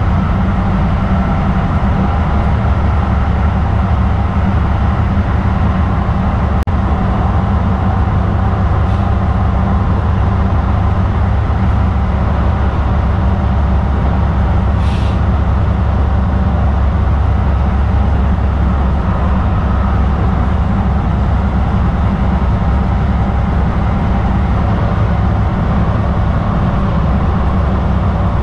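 Kinki Sharyo light rail train running along the track: a steady, deep rumble of wheels on rail and motors that holds even throughout, with a brief hiss about halfway through.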